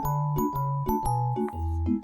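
Background instrumental music: a light melody of evenly spaced notes, about four a second, over a bass line.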